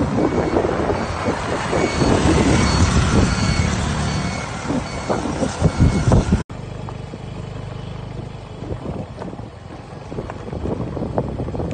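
Wind buffeting the microphone over the running noise of a moving vehicle, with a faint high beep repeating at an even pace. The sound cuts off abruptly about six seconds in and gives way to a quieter, steady low rumble with wind.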